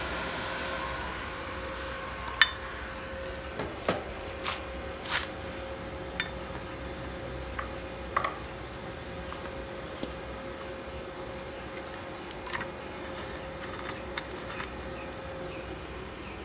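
Steady hum of the Benz Werkz MMA-160A inverter welder's cooling fan running, with scattered metallic clicks and clanks as the welding cables and connectors are handled and plugged into the welder. The loudest click comes about two and a half seconds in.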